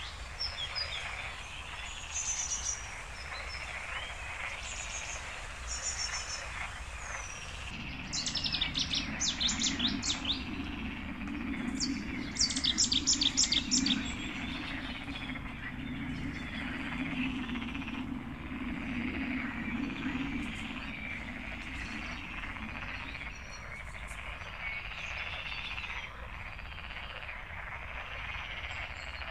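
Wetland birds chirping, with two loud rapid trills about eight and twelve seconds in, over a steady wavering chorus of frogs, with a lower croaking through the middle stretch.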